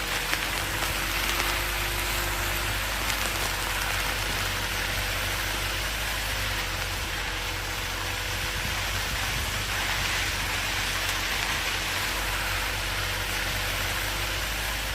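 Car driving on a dirt road: steady tyre noise on the loose surface over a low, even engine rumble.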